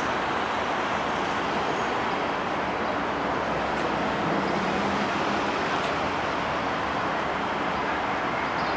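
Steady road and wind noise from a moving vehicle, an even rush with no breaks.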